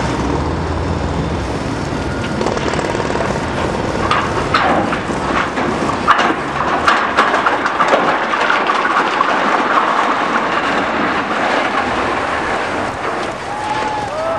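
Demolition of a stadium structure: a steady rumble of machinery and debris, with a run of clanks and crashes from about four to eight seconds in as the structure buckles.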